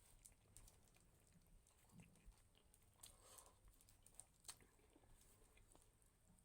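Faint chewing and small clicking mouth sounds of a person eating rice and a vegetable dish, with a soft slurping or rustling sound about three seconds in.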